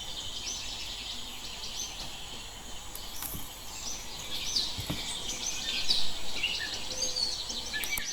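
Several birds chirping in short, quick calls that come thicker in the second half, over a steady outdoor hiss.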